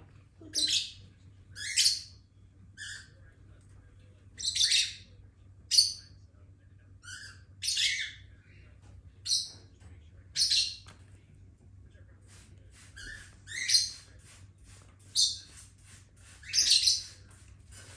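Lovebirds calling: a series of short, high-pitched chirps about once a second, some loud, with a run of quicker, fainter chirps near the end.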